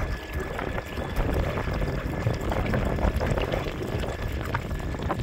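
Water rushing and splashing along a canoe's hull as it runs flat out under an electric trolling motor, with wind buffeting the microphone and a faint steady whine throughout.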